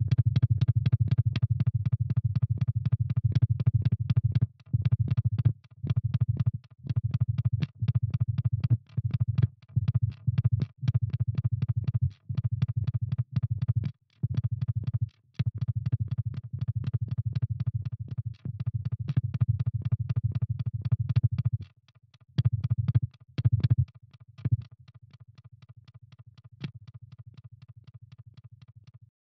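Electronic soundtrack: a low, buzzing synthesized drone made of rapid clicking pulses, chopped by short gaps again and again. About three-quarters of the way through, the low drone drops away, leaving a quieter, thin clicking that stops just before the end.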